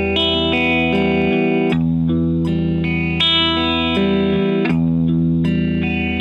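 Fender Telecaster electric guitar fingerpicked in a repeating E-chord arpeggio: a bass E from the thumb, then the higher strings plucked one after another. The notes ring into each other, and the pattern cycles about every three seconds.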